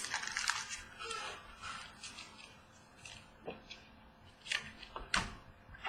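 Trading cards being handled and flipped through: a run of short rustling and sliding sounds, then a few sharp clicks and taps near the end.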